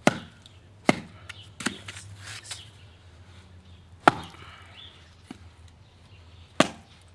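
Batoning: a piece of scrap wood striking the spine of a survival knife lodged in the end of an upright 2x4, splitting it. About six sharp wooden knocks, spaced unevenly, some harder than others.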